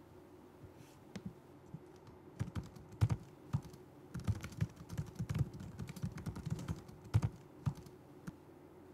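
Typing on a laptop keyboard: a few scattered key clicks at first, then a quick busy run of clicks through the middle, ending with a few last taps.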